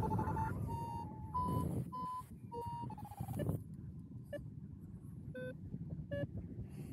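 Paragliding variometer beeping over wind rush: a quick string of short beeps near one pitch, stepping up and down, that thins to a few isolated beeps about halfway through. The beeps are the vario's climb tone, a sign the glider is rising in lift.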